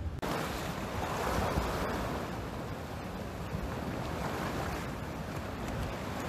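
Sea surf washing and breaking against a rocky shore in a steady, swelling rush, with wind buffeting the microphone.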